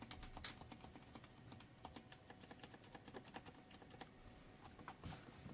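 Quiet computer keyboard keys (spacebar, enter and right shift) struck repeatedly at medium force: a faint, quick run of soft key clicks.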